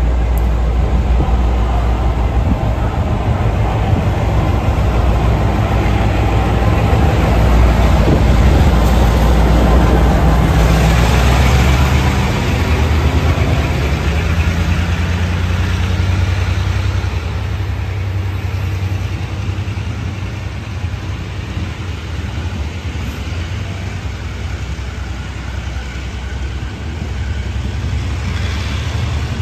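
Diesel-electric locomotive R113's engine running loud as it pulls a freight train slowly past. About twelve seconds in the engine sound eases off, and the freight wagons keep rolling past on the rails.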